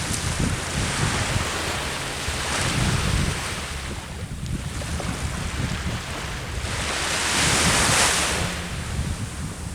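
Sea waves breaking and washing up the shore, swelling to one loud surge about seven seconds in, with wind buffeting the microphone.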